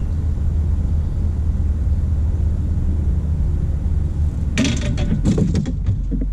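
A steady low rumble. About four and a half seconds in comes a quick run of knocks and clatter on the boat as a fishing rod is grabbed from its holder.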